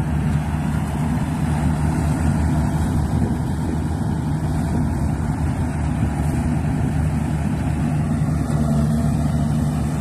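Yanmar rice combine harvester's diesel engine running steadily under load, a constant hum with no change in speed.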